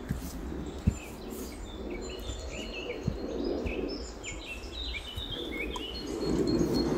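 Ducklings peeping, a run of short high peeps, over a low background rumble. A louder low rattling rumble starts near the end.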